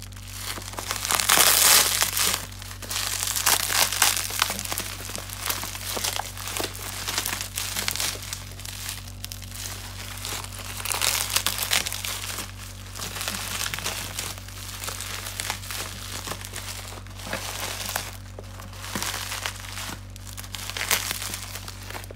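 Bubble wrap and brown plastic packing tape crinkling and rustling as hands pull them off a parcel. The crinkling comes in uneven spells and is loudest about two seconds in.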